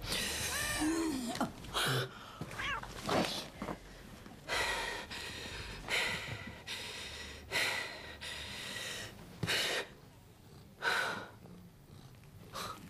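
Domestic cat meowing again and again, a call roughly every second and a half, the first one sliding up and down in pitch.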